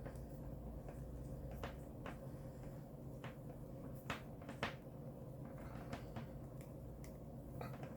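Scattered small plastic clicks and taps, the two loudest close together about four seconds in, from tightening the cap nut of an MC4 solar connector by hand, over a steady low hum.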